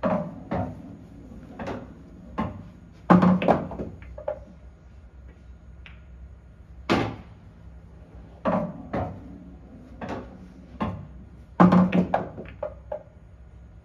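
Pool balls clacking on an English pub pool table: the cue tip striking the cue ball and balls colliding, in a string of sharp clicks at uneven spacing. A few, about three seconds in and near the end, come with a heavier knock.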